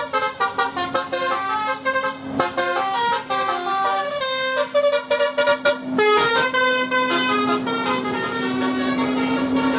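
Bus telolet horn, a Basuri multi-tone horn, playing a quick melody of short stepped notes over a steady low drone. About six seconds in it gets louder, with more hiss.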